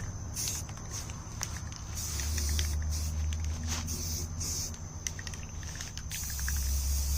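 Aerosol spray-paint can hissing in several short bursts, some under a second and the last over a second long, as paint is sprayed onto a steel helmet, with a low rumble underneath.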